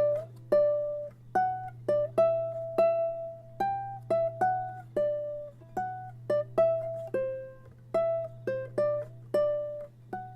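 A plucked-string instrument playing a melody of single notes, about two a second, each one ringing briefly and fading. A steady low hum sits underneath.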